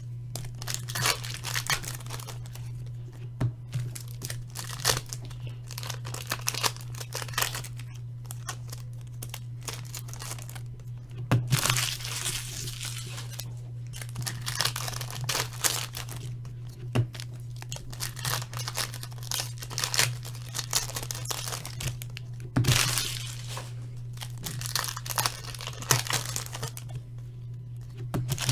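Upper Deck Champs hockey card packs being torn open and their wrappers crinkled, in irregular bursts, over a steady low hum.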